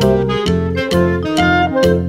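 Background music with a steady beat, about two beats a second, over a moving bass line and melody.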